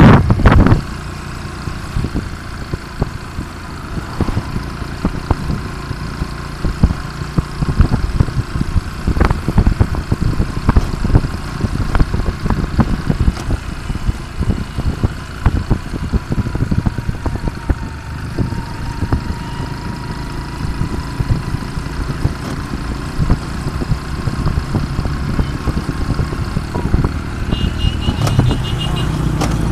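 Motorcycle engine running steadily while riding, heard from the rider's seat with wind and road rumble crackling on the microphone. A loud rustle at the very start as the phone brushes clothing, and a brief faint rapid beeping near the end.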